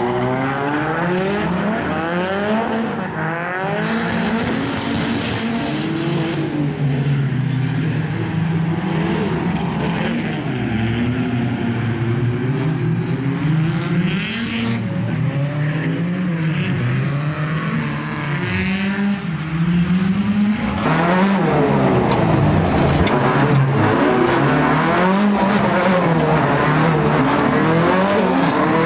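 Drift cars sliding in tandem, among them a BMW E92 with a swapped Mercedes M111 four-cylinder: engines revving up and down over and over as they hold the slides, with tyres squealing and skidding. About two-thirds of the way in the sound gets louder and brighter.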